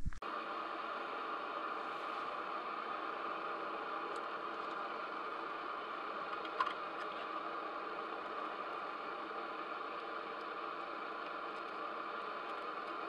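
Steady whirring hum of a small camera drone's motors and propellers, with one short click about six and a half seconds in.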